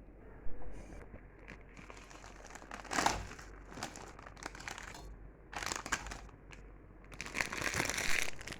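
Crinkling and rustling of something being handled, in several bursts, with the longest and loudest near the end.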